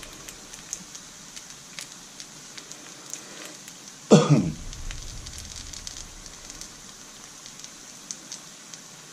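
Rice-paper pizza frying in a pan: a steady quiet sizzle with small crackling pops. About four seconds in, a man briefly clears his throat, the loudest sound, falling in pitch.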